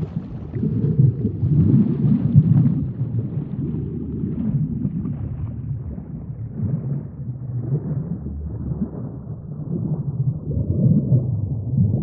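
Sinking-underwater sound effect: a low, muffled rumble of water with gurgling bubbles, growing duller and a little quieter as it goes on.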